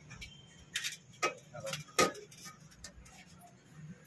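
Hands shaping mashed-potato vada balls: a handful of light, sharp clicks and taps spread over about a second and a half, the loudest about two seconds in.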